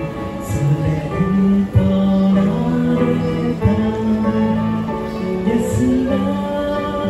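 A man singing a slow worship song into a microphone, with electronic keyboard accompaniment played through a small amplifier. The song is made of long held notes.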